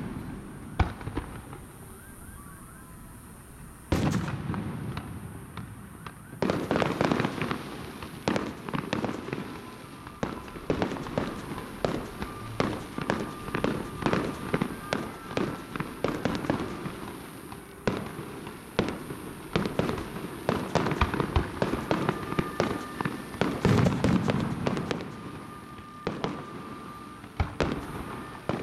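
Aerial fireworks bursting: a single bang about four seconds in, then from about six seconds a dense run of bangs and crackling bursts.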